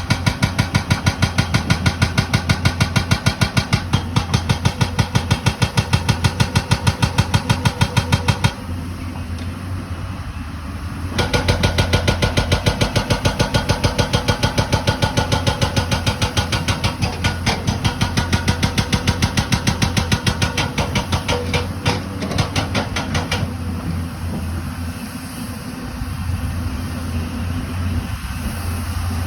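Excavator working, its diesel engine running steadily under a fast, even clatter of strikes, about five a second. The clatter stops about eight seconds in and starts again about three seconds later, running until a few seconds before the end.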